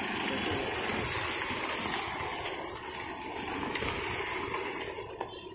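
Steady rushing noise of a line of motorcycles riding past on a road, engines and tyres blending together, easing off a little near the end.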